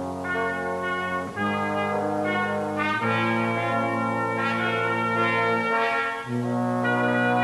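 Instrumental background music of held chords, the chord changing every one to two seconds.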